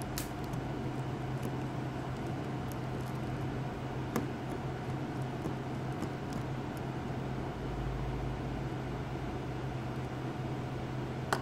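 Steady low hum and hiss, with a few faint sharp clicks: one about four seconds in and two near the end.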